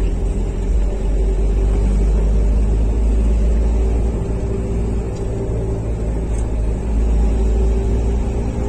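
Steady low rumble of engine and road noise inside the cabin of a moving passenger van.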